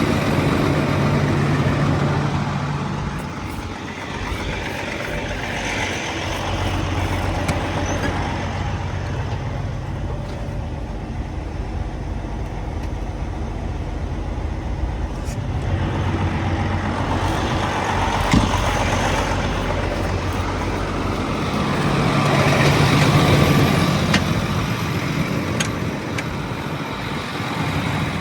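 Heavy diesel engine running, its sound swelling and fading several times, loudest a few seconds before the end.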